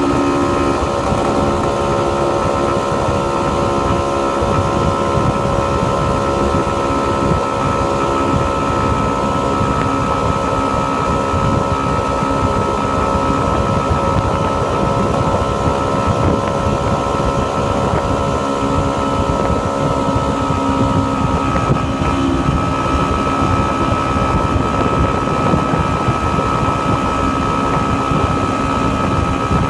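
Honda NSR two-stroke motorcycle engine running at a steady cruise under way, heard from the rider's position, with wind buffeting the microphone. The engine note shifts slightly about two-thirds of the way through.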